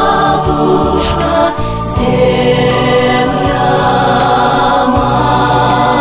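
Choral music: a choir holding sustained chords without words, with a change of chord about two seconds in.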